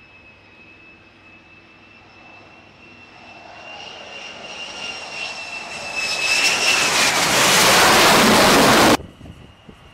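F-35C fighter jet's turbofan engine on approach to the carrier deck: a high whine that grows steadily louder into a loud rush of jet noise as the jet comes in, its whine dropping slightly in pitch. The sound cuts off suddenly about a second before the end.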